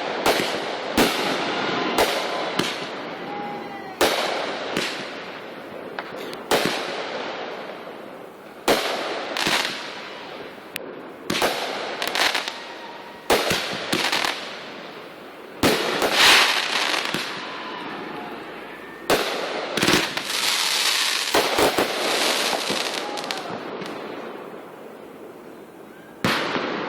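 Consumer fireworks going off in quick succession: sharp bangs, each trailing off into crackling. The bangs come thickest and loudest about two-thirds of the way through, then thin out before one more bang near the end.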